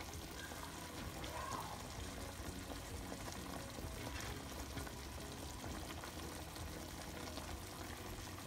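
Pork in salsa verde sizzling and simmering in a frying pan on the stove: a steady, even hiss.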